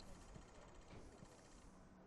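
Near silence: faint background noise with a low steady hum and a couple of faint knocks.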